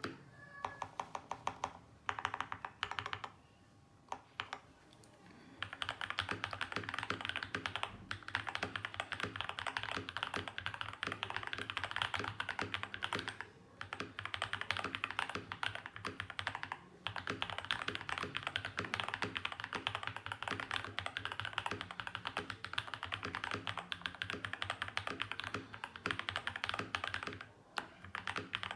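Typing on a Feker FK68T mechanical keyboard with Holy Panda tactile switches lubed with 205g0 mixed with 105g0, in a foam-filled, o-ring gasket-mounted case. The keystrokes come rapidly and steadily, with a short lull a few seconds in and a few brief breaks later.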